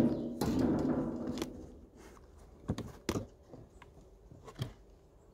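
A galvanized sheet-metal beehive roof clunks, then rattles and scrapes with a slight metallic ring for about a second as it is put down. A few lighter knocks follow as the hive's flat cover board is handled.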